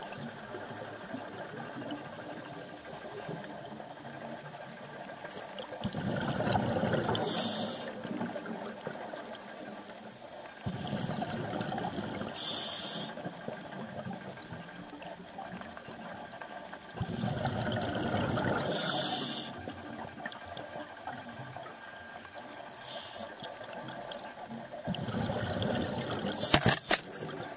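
Scuba diver breathing through a regulator, heard underwater: a rush of exhaled bubbles and a short hiss of inhaled air, repeating about every six seconds. A few sharp clicks near the end.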